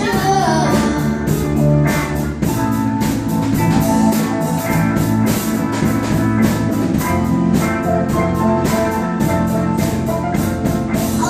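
Instrumental passage of a rock song with no vocals: a drum kit keeps a steady beat under sustained guitar and keyboard-like chords.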